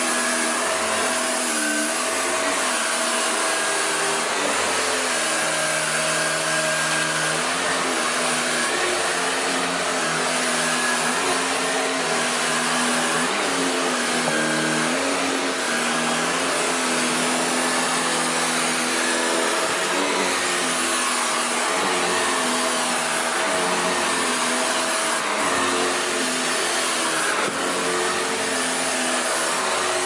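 Shark NV680 Powered Lift-Away upright vacuum cleaner running on carpet: a steady rushing of suction over a motor hum that wavers up and down in pitch as it is worked across the floor.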